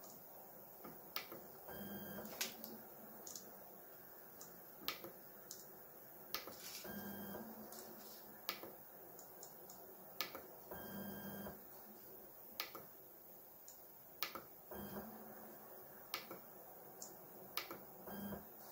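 Voron 3D printer's stepper motors humming in about five short bursts, roughly every four seconds, as the nozzle is stepped down toward the bed in small Z moves during a paper-test Z-offset adjustment. Faint sharp clicks are scattered between the bursts.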